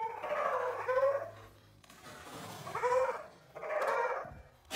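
An animal's repeated high calls, about four of them, each under a second long and rising then falling in pitch.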